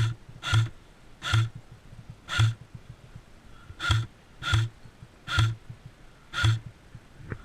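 Heavy panting breaths close to the microphone, coming about twice a second at first and then slowing to about one a second.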